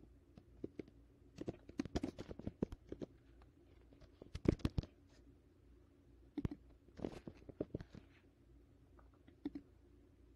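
Typing on a computer keyboard in short runs of key clicks, with a few single clicks between them.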